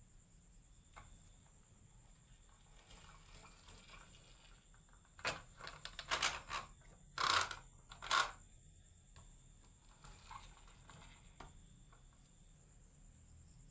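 Marbles clacking along a wooden marble run: a cluster of sharp clicks and knocks beginning about five seconds in and lasting some three seconds. A faint steady high-pitched whine runs underneath.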